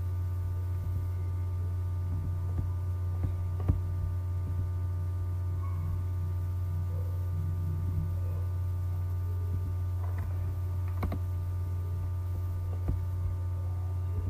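Steady low electrical hum with faint higher tones above it, broken by a few sharp computer-mouse clicks, the loudest about four seconds in and another about eleven seconds in, as lines are drawn in a CAD sketch.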